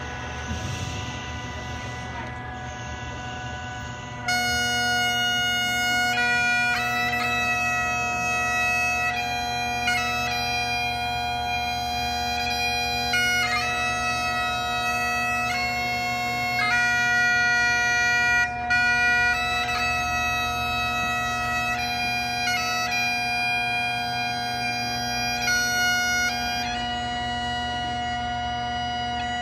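Great Highland bagpipe playing: for the first four seconds only the steady drones sound, then the chanter comes in with a melody over them. The melody stops about three seconds before the end, leaving the drones sounding alone.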